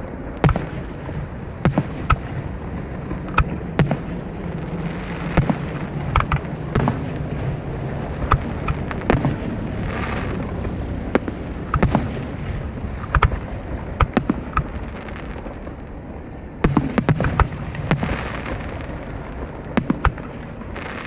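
Aerial fireworks display: sharp shell bursts about every second or so over a continuous rumble and crackle, with a quick cluster of bangs about three quarters of the way through.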